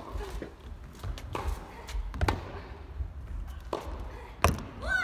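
Tennis rally: sharp racket strikes and ball bounces about once a second, the loudest near the end.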